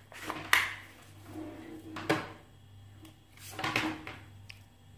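Handling noise from a Parkside PFS 710 reciprocating saw: a few short plastic knocks and clicks as its housing is turned over in the hands, the loudest about half a second in and others about two and three and a half seconds in.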